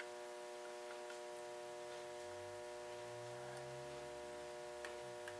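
Steady electrical mains hum, with a few faint ticks, one a little sharper near the end.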